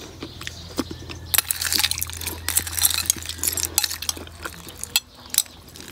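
Metal spoon stirring and scooping through ice cubes and milk in a glass bowl: quick clinks and scrapes against the glass and ice, thickest from about a second and a half to four seconds in, with a few single clinks after.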